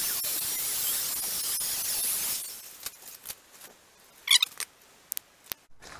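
Electric rotary polisher with a soft mop running on wet car paintwork, a steady high hiss that stops about two and a half seconds in. After it come a few light clicks and one short, loud high squeak a little past four seconds in.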